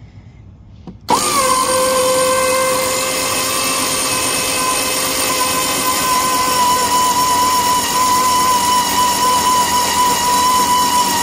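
Electric motor of a Powerwinch folding camper winch starting suddenly about a second in and then running steadily with a whine, raising a pop-up camper's roof under load.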